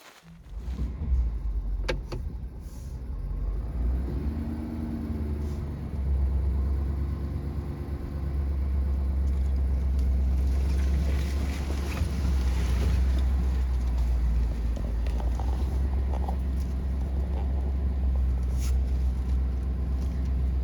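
Truck engine running as the truck drives up a hill on a rough back road: a steady low rumble that picks up about a third of the way in, with occasional knocks from the bumps.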